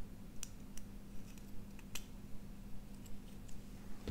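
Faint, light clicks and ticks of resistor wire leads and a small circuit board being handled as the leads are pushed through the board's holes, about eight scattered ticks over a steady low hum.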